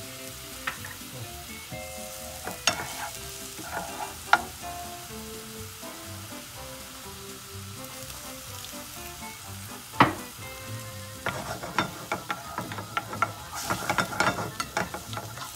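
A wine, lemon and butter sauce bubbling and sizzling steadily in a nonstick frying pan, with a few sharp knocks against the pan. From about 11 seconds in, a wooden spoon stirring the sauce brings a rapid run of clicks and scrapes.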